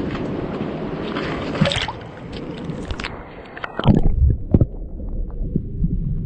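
Sea water washing and sloshing around shoreline rocks, swelling about one to two seconds in. About four seconds in it gives way to a low rumble with two thumps.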